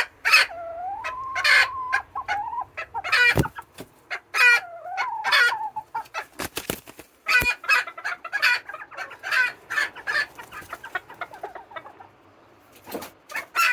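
Serama bantam chickens clucking and calling. Twice a bird gives a drawn-out, wavering, very squeaky song.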